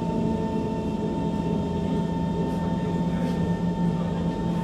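Kawasaki C151 metro train heard from inside the car while cruising at steady speed: a constant rumble of the wheels on the track, with a steady whine that holds the same pitch.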